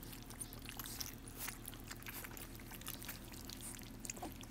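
Bullmastiff puppies lapping and smacking at wet puppy mush in a steel bowl: many quick, irregular wet smacks and clicks, with a steady low hum beneath.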